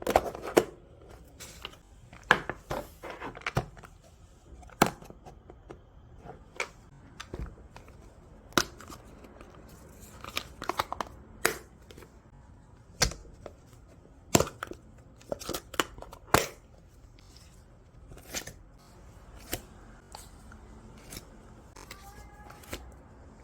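Close-up handling of paper or plastic: tearing, snipping and crinkling, heard as scattered sharp clicks and short rustles, fewer towards the end.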